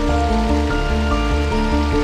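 Background music: held melodic notes over a steady, even bass pulse, with a faint hiss of running water beneath.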